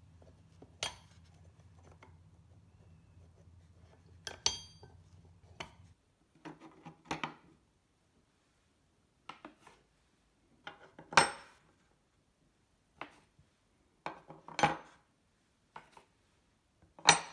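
Steel spade drill bits being set one by one into the slots of an oak drawer. The sound is a string of separate metallic clinks and knocks, about a dozen, some with a brief ring. The loudest come near the middle and at the very end.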